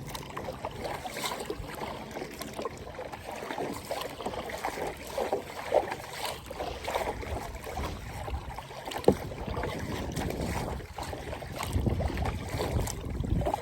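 Lake water lapping and sloshing against a kayak, with soft uneven swishes, a sharp knock about nine seconds in, and wind rumbling on the microphone near the end.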